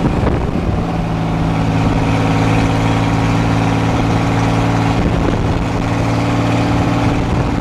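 Fiat 100-90 tractor's six-cylinder diesel engine running steadily on the road, heard from inside the cab, its note holding level after a slight shift under a second in.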